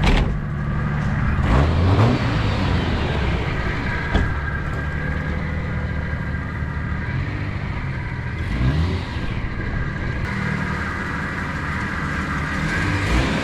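A vehicle engine running steadily, revving up briefly about two seconds in and again about nine seconds in, with a single sharp knock about four seconds in.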